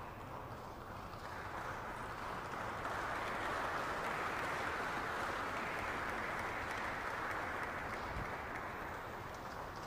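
Audience applauding in a large hall, a steady patter of many hands that swells to its loudest in the middle and eases off near the end.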